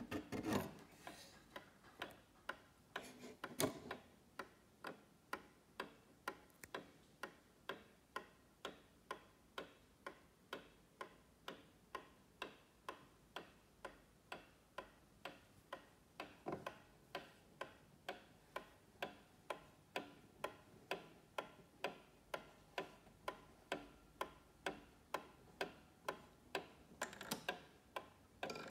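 Antique Atkins Clock Company pendulum mantel clock ticking steadily, about two ticks a second. A few soft rubbing noises from the case being handled come near the start.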